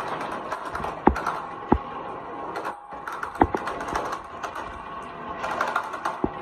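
Glass marbles rolling down a wavy groove in a wooden marble-run slope, a continuous rattle of clicks as they run along the wood and tap against one another. Four sharper clacks stand out, about a second in, shortly after, in the middle and near the end.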